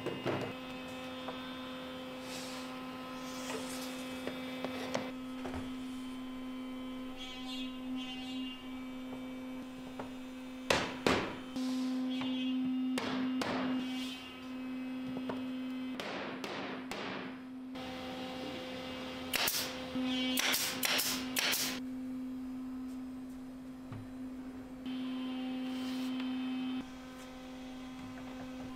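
Mallet striking the plywood rings and slats of a wooden wheel frame, fitting them together, in several sharp knocks that come in small clusters, mostly in the middle. A steady electrical hum runs underneath.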